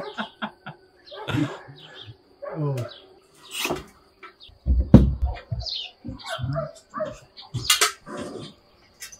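Scattered knocks and clatter from boards being fitted under the roof eaves, the loudest a sharp knock about five seconds in.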